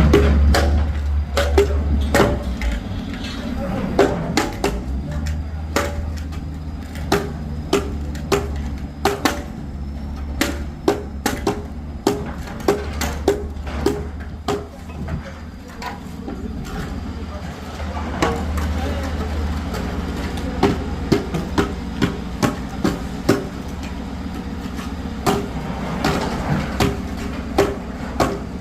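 Sharp repeated strikes, each with a short metallic ring, coming in runs of about two a second with a sparser stretch in the middle, over the steady low hum of a running engine.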